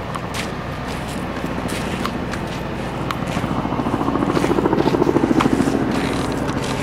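Outdoor street noise with scattered footsteps and handling clicks from a moving handheld camera. A low hum swells and fades in the second half.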